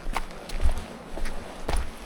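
Footsteps at a walking pace, about two steps a second, each a dull thump.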